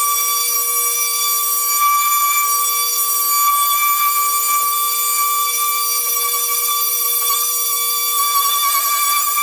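Small corded handheld power tool running steadily against wood paneling: a continuous high-pitched whine that wavers slightly as it is pressed and moved.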